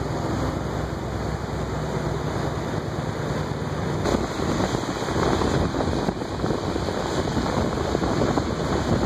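Wind rushing over the microphone of a camera mounted on a moving scooter, with the scooter's engine running steadily underneath.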